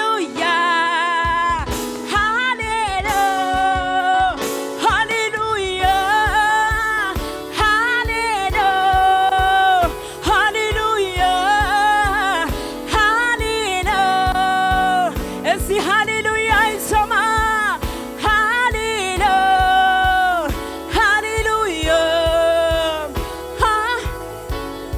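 Live gospel worship music: a sung melody line with vibrato and sliding notes over a band with a steady beat that comes in about a second in.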